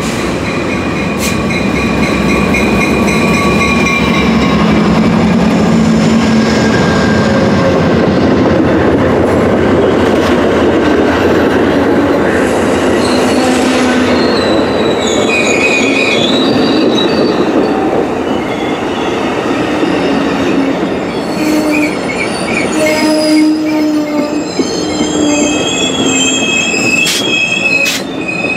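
Amtrak passenger train passing close by: the diesel locomotive goes by, then bilevel Superliner cars rolling past, with steel wheels squealing in several high tones through the second half and a few sharp clicks near the end.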